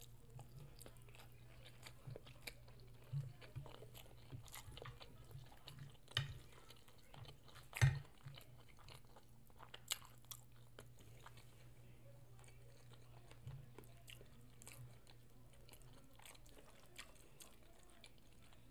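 A person chewing birria ramen: soft, irregular chewing and mouth sounds with a few louder clicks, over a steady low hum.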